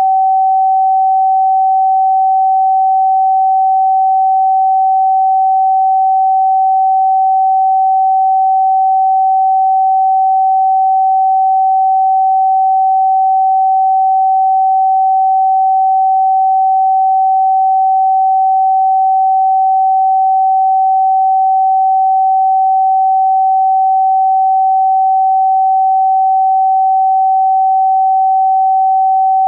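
A pure sine tone held at a single steady pitch of about 764 Hz, the note G (Sol) in A=432 Hz tuning, with no overtones.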